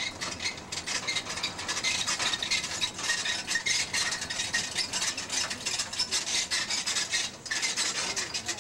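Steady scratchy rattling noise of rapid tiny clicks from a moving open resort tram.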